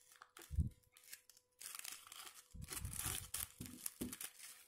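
Crinkling and rustling of a foil-lined plastic biscuit wrapper as fingers dig into the open pack for a butter cookie, in short bursts, with a soft bump about half a second in.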